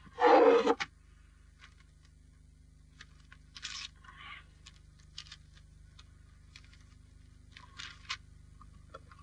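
Paper rustling and scraping on a tabletop as it is handled and cut, in a few short bursts. A louder scrape comes at the very start. A steady low hum runs underneath.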